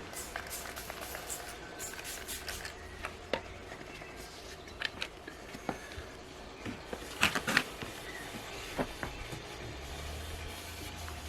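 Irregular light clicks, taps and rubbing of hand work with sandpaper on a car's painted panel during wet sanding of a touched-up scratch, with a cluster of sharper taps a little past halfway. A low hum comes in near the end.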